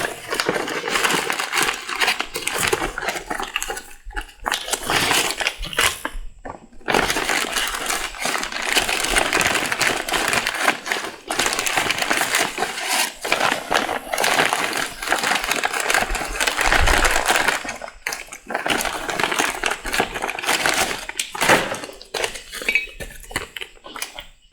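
Plastic packaging crinkling and small metal parts clinking as a Sonnax transmission repair kit is opened and its pieces handled. The rustling stops for brief gaps several times.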